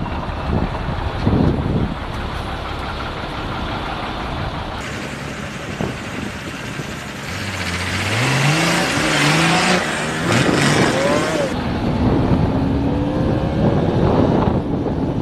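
Motorcycle engine accelerating through the gears: its pitch climbs, drops at each shift and climbs again about halfway through, then holds steady at cruising speed. Wind rushes over the microphone throughout.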